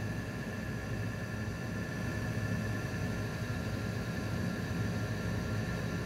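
Steady mechanical hum with several faint, constant high whining tones, unchanging throughout.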